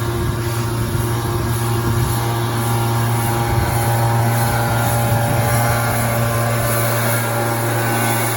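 An engine running steadily at a constant speed, a low even drone with no change in pitch.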